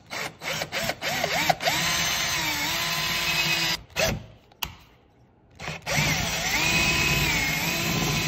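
Power drill with a twist bit boring out holes in the plastic underside of a car's front bumper. A few quick trigger bursts give way to a steady run of about two seconds, then a short burst and a pause. A longer run follows whose whine dips briefly as the bit bites.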